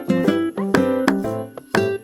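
Background music: a plucked string instrument, like a ukulele or guitar, playing notes about twice a second in a steady beat.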